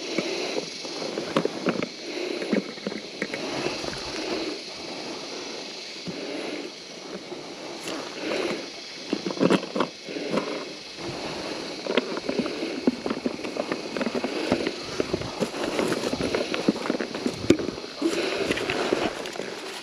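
Irregular handling noises, scraping, rustling and sharp clicks, from a fuel bladder and its cap being worked by hand.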